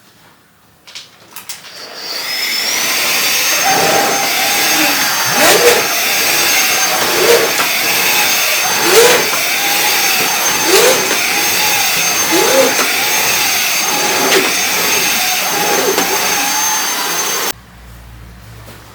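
Vacuum cleaner switched on, its motor whine rising as it spins up, then running steadily and loudly with a regular rise and fall about every two seconds. It cuts off suddenly near the end.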